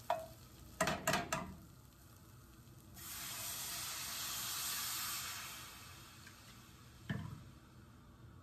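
White wine poured into a hot skillet of browned tomato paste, hitting the pan with a sudden sizzling hiss about three seconds in that fades over a few seconds as it deglazes the pan. Before it a few clinks of a metal spoon against the pan, and a single spoon knock near the end.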